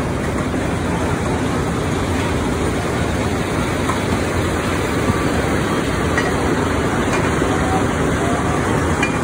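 Machinery running steadily and loudly without a break, with a few faint ticks over it.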